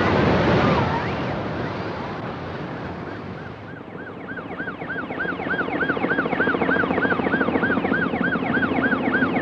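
Surf breaking, then from about four seconds in a siren sweeping up and down quickly, two or three times a second: a beach shark alarm, over a steady hum from a patrol helicopter.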